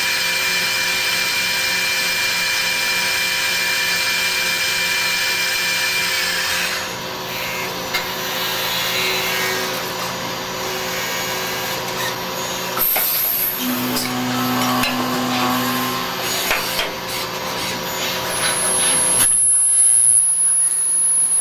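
CNC lathe turning brass: a steady machine hum with several high whining tones over a hiss of cutting noise. The sound shifts abruptly about a third of the way in, again past halfway, and once more near the end.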